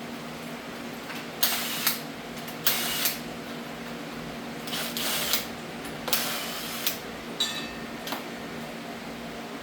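Metal hand tools and engine parts clanking and scraping in a series of short, irregular bursts, over a steady low hum.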